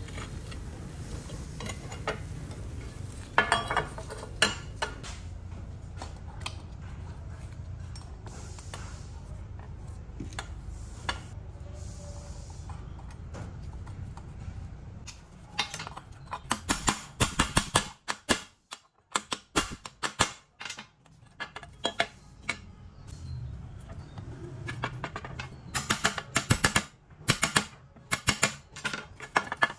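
Metal tools clinking and tapping on a chainsaw's bare metal crankcase. Near the end comes a quick run of hammer taps on a socket used as a drift in the crankshaft bearing bore. A steady low hum runs under the first half.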